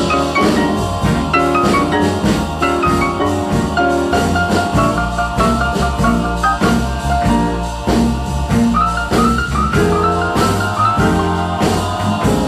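Background music: an instrumental stretch of a rock-and-roll Christmas song, with drums and a steady beat and no singing.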